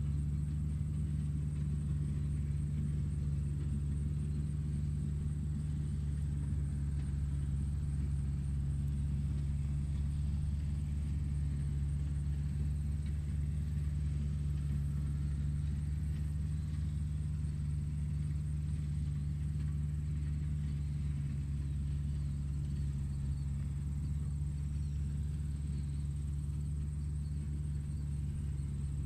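Steady low engine-like hum with a thin high whine above it, unchanging throughout.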